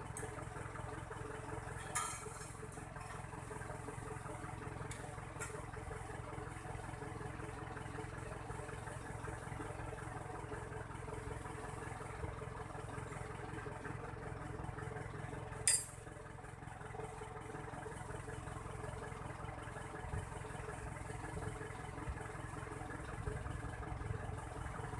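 Vehicle engine idling steadily, with two short metallic clinks, one about two seconds in and another about sixteen seconds in.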